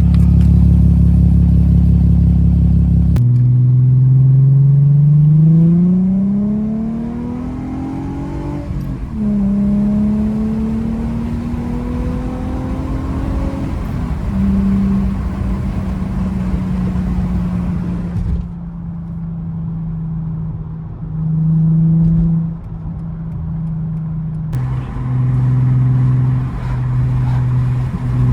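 Mercedes C320's 3.2-litre V6 pulling through the gears, breathing through a secondary-cat-delete, resonator-delete exhaust. Its note rises steadily for several seconds, drops at a gear change about nine seconds in, climbs again more slowly, then settles to a steady cruise.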